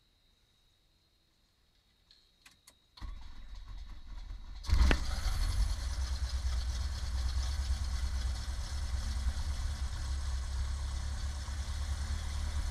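Cessna 172P's four-cylinder Lycoming engine being started: a few clicks, then a low rumble of the starter cranking for about a second and a half, before the engine catches with a loud burst and settles into a steady idle.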